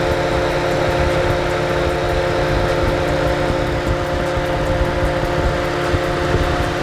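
Nissan 350Z's VQ35DE V6 idling with its electric radiator fans running: a steady drone carrying several steady tones. The engine is overheating, which the owner puts down to a thermostat probably stuck closed, since the upper radiator hose is hot and the lower one cold.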